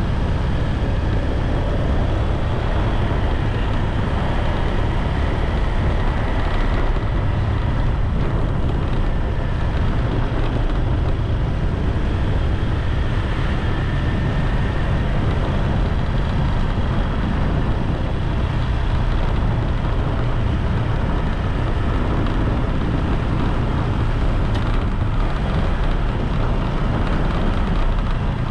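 Steady rushing and buffeting of wind on the microphone, with road noise, from a bike ride along a paved road. It holds even throughout, heaviest in the low rumble.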